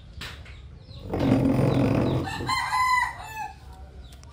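A rooster crowing once: a single long crow starting about a second in and lasting about two seconds.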